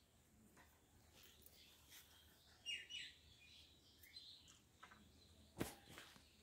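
Faint bird chirps: two short falling chirps about three seconds in, over a near-quiet background, with a single sharp click near the end.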